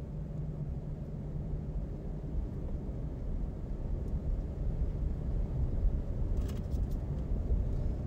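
Steady road and engine rumble heard inside a car cruising on a freeway, with a low hum that fades out after about two seconds.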